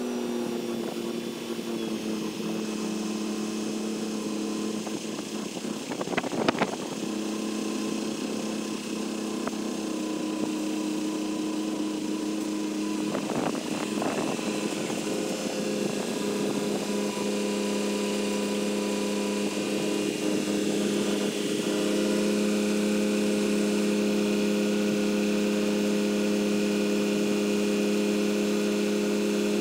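Crane's engine running steadily at raised revs under load, its pitch stepping up slightly about two-thirds of the way through and dropping back at the very end. Sharp metallic clanks sound about six seconds in and again about fourteen seconds in.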